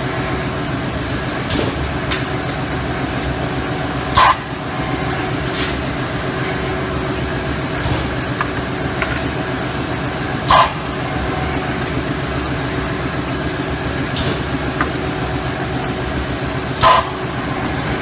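A 2-ton crystal ice machine running with a steady mechanical hum. A short burst of noise recurs about every three seconds, and every other burst is much louder.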